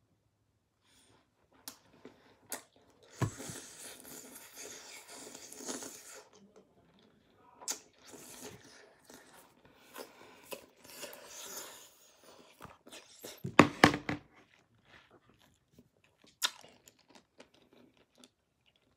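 Rustling and scraping from objects being handled close to the microphone, in two stretches of a few seconds each, broken by sharp clicks, with a loud cluster of knocks about two-thirds of the way through.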